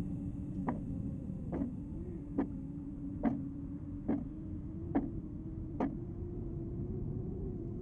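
Dark ambient soundscape: a steady low drone over rumble, with a sharp click a little under once a second. The seven clicks stop about six seconds in, and the drone carries on alone.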